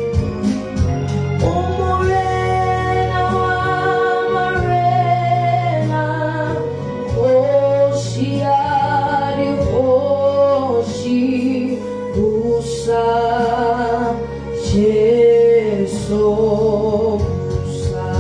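Gospel song: a sung melody with long held, wavering notes over a bass line and sustained keyboard chords.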